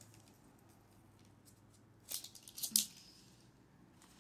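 A few short plastic clicks and rustles about two seconds in, the last the loudest, from a toy capsule's packaging being opened and handled.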